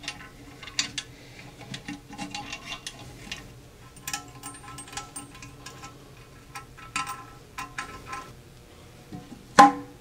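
Irregular clicks and small knocks as hands unscrew the plastic coupling nut of a toilet's water supply line from the fill valve and work the tank loose. Near the end comes one loud, hard knock with a short ring as the porcelain tank comes off the bowl.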